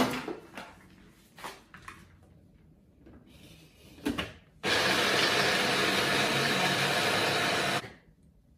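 Electric blender running for about three seconds, chopping garlic and ginger, starting about halfway in and cutting off abruptly near the end. A few light knocks come before it.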